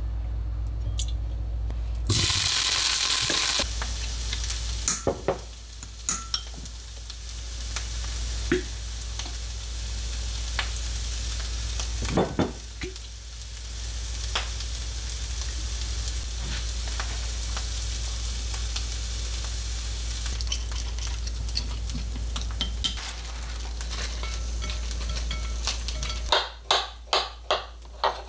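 Cubed tempeh frying in olive oil in a cast-iron skillet: a louder burst of sizzling about two seconds in settles into steady frying, with scattered clicks and taps of utensils. Near the end a knife knocks about six times in quick succession on a wooden cutting board, slicing avocado.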